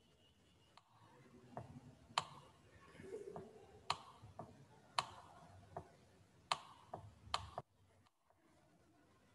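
Faint clicks and taps from handwriting being entered on a digital whiteboard: five sharper clicks among lighter ticks, stopping about three-quarters of the way through.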